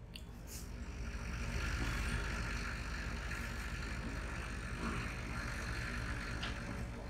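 A steady low rumble with a hiss, like an engine running close by, swelling over the first two seconds and then holding. A couple of faint ticks of a marker on a whiteboard come near the start.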